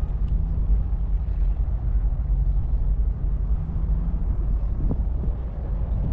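Wind buffeting the microphone: a loud, uneven low rumble that swells and dips throughout.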